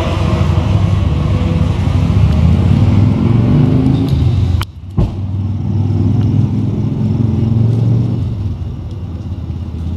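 Street traffic: cars and vans running past close by with a steady low engine hum, one of them speeding up. The sound drops out briefly with a click about halfway through.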